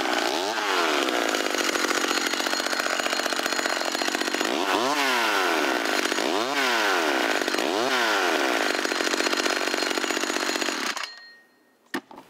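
McCulloch Mini Mac 35 two-stroke chainsaw running, revved up and back down about four times, then shut off about eleven seconds in. A single sharp click follows.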